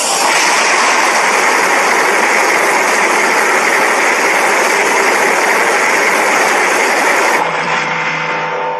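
A custom monster (kaiju) sound effect: a loud, steady rushing roar of noise that starts abruptly. After about seven seconds it thins into a quieter humming tail with a few steady tones, then cuts off.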